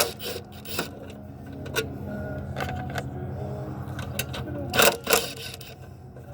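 Sharp metallic clicks and knocks of tools and parts being handled during an engine teardown, with two loud knocks near the end, over a steady low hum.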